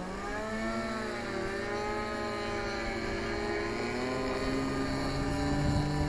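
Seagull Edge 540 RC aerobatic model's engine running on the ground. Its pitch dips at the start, wavers, then rises and holds higher from about four seconds in as the throttle is opened for the takeoff roll.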